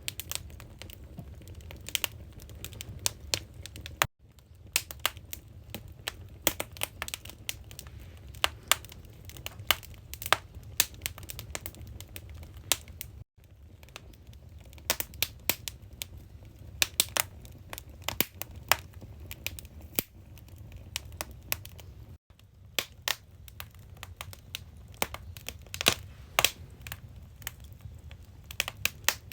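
Firewood burning in a traditional Korean agungi firebox, crackling and popping irregularly over a steady low rumble of the fire. The sound cuts out briefly three times.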